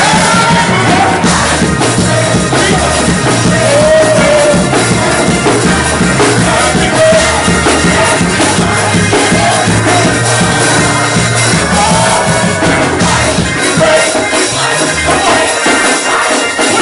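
Loud live gospel music from a church band, with a stepping bass line and a voice singing over it.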